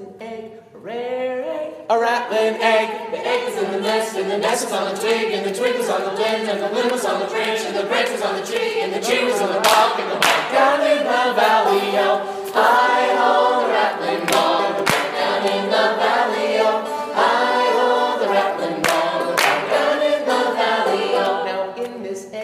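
A cappella group of singers, many voices singing together in harmony without instruments.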